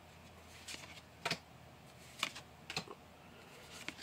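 Pokémon trading cards being flipped through by hand, one card at a time, each card edge giving a short crisp click, about half a dozen at irregular intervals.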